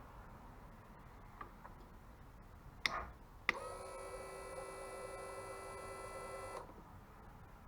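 Suzuki V-Strom 650 at ignition key-on: two clicks, then a steady electric whine for about three seconds that cuts off suddenly, typical of the fuel pump priming.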